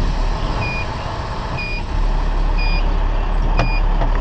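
A fire truck's reverse alarm beeping about once a second over the steady rumble of its engine as it backs up, with a sharp click near the end.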